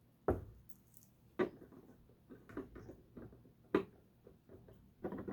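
Small plastic LEGO pieces being handled and set in place: three sharp clicks a second or more apart with lighter ticks in between, and a louder clatter beginning at the very end.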